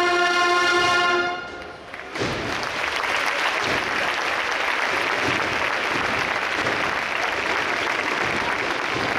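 A Spanish processional brass band (agrupación musical) holds its closing chord, which ends about a second and a half in. About two seconds in, the audience breaks into sustained applause and cheering.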